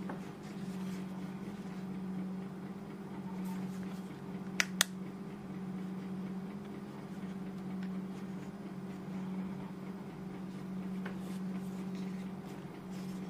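Hands handling a plastic over-ear gaming headset: faint rubbing and light clicks, with two sharp clicks in quick succession about four and a half seconds in. A steady low hum runs underneath.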